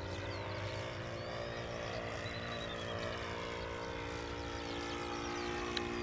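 Engine of a radio-controlled scale Gipsy Moth biplane model droning steadily in flight, at an even pitch, and growing slightly louder as the model comes closer.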